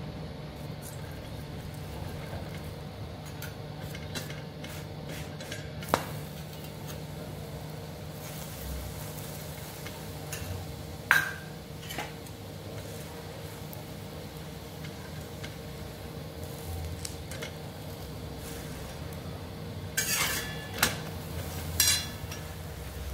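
A metal utensil clinks against a griddle while a stuffed paratha is roasting: a sharp clink about six seconds in, a louder ringing one near the middle, and a short cluster of clinks near the end, over a steady low hum.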